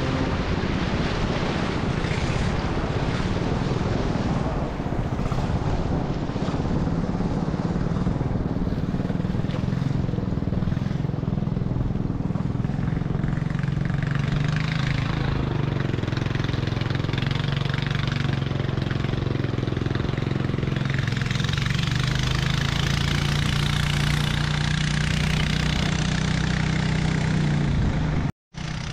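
Engine of a river motorboat running steadily, a constant low drone with rushing noise over it. It drops out abruptly for a moment near the end.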